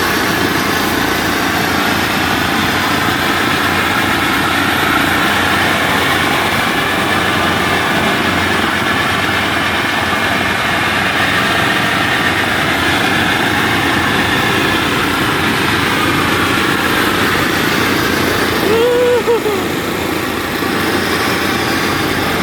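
Kubota WD102PRO combine harvester's engine running steadily as it travels along the road, heard from a vehicle following close behind, with a steady rush of road and wind noise. About 19 seconds in, a short tone rises and falls.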